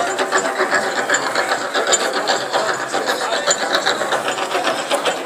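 Large crowd talking all at once, a dense steady hubbub of many voices, with many short clicks mixed in.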